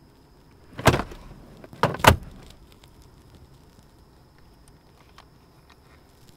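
Handgun being handled in a car's cabin: three sharp mechanical clacks, one a little under a second in, then two close together about a second later.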